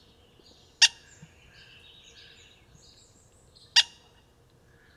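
Cooper's Hawk giving its loud single-note "kik" call twice, about three seconds apart, each short and sharp. This call is mostly used by males when displaying or bringing food to the nest. Faint chirping runs behind.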